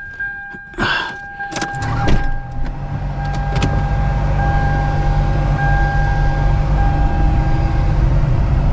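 A few knocks and thuds, then a car engine starts about two seconds in and runs steadily with a low rumble.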